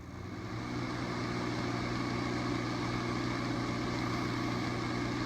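A motor starts up and runs with a steady low hum, building up over about the first second.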